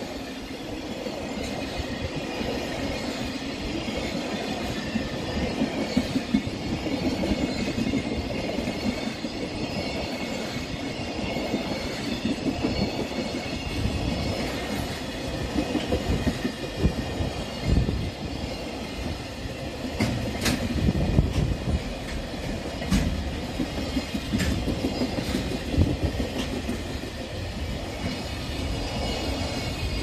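Container freight train's wagons rolling past, a steady rumble of wheels on rail with repeated sharp clacks over the rail joints, heavier in the second half.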